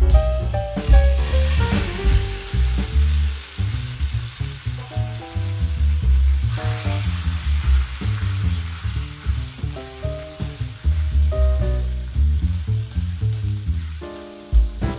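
Garlic frying in hot oil in a nonstick pan, sizzling hard. The sizzle flares up about a second in and surges again about six and a half seconds in, as a silicone spatula stirs the bubbling sauce. Background music with a heavy bass line plays under it.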